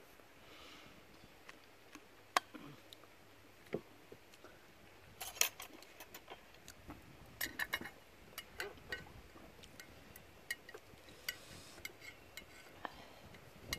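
Scattered clicks and clinks of metal chopsticks and dish handling against a plastic lunch container, some in quick little clusters. A sharp click about two and a half seconds in is the loudest.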